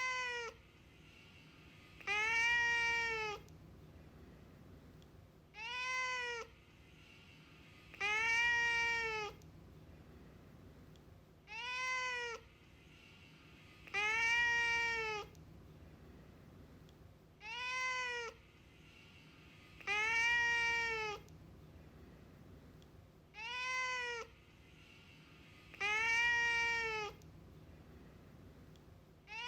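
A cat meowing over and over, alternating a short meow and a longer one, each rising then falling in pitch. A short-long pair comes about every six seconds, repeating so evenly that it sounds like the same pair played again and again.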